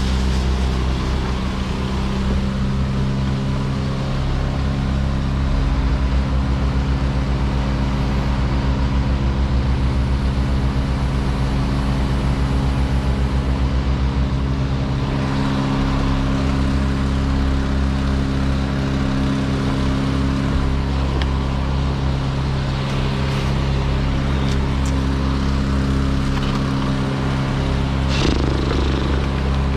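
An engine running steadily at a constant speed, with a short noise near the end.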